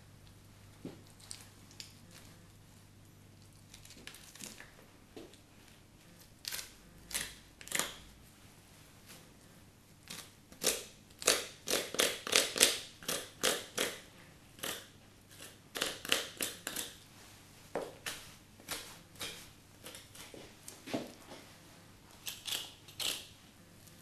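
A knife and hands working the loin fillet free from a fallow deer carcass's backbone: a run of short crackling scrapes and tearing sounds, sparse at first and thickest about halfway through.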